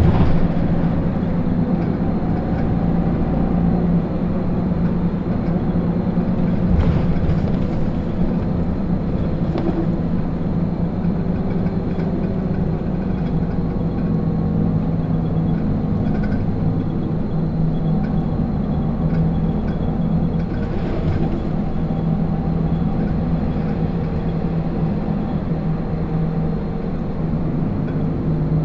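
Isuzu Erga non-step city bus (2TG-LV290Q3) running, heard from inside the passenger cabin: a steady diesel engine drone with a few brief knocks and rattles.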